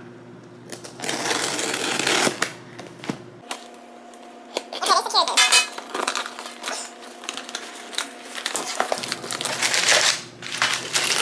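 A cardboard mailer package being opened by hand: long stretches of rustling and tearing packaging, with many sharp clicks and crackles.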